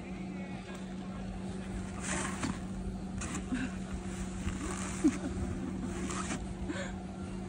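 Short bursts of scraping and rustling as a snowboarder shuffles her board and padded snow clothes in the snow, trying to push herself up. A steady low mechanical hum runs underneath.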